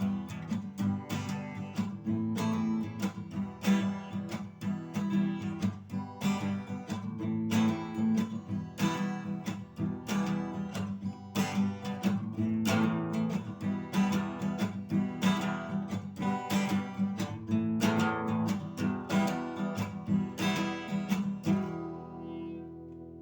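Acoustic guitar strummed in a steady rhythm of chords, the song's instrumental ending; near the end the strumming stops and the last chord rings out.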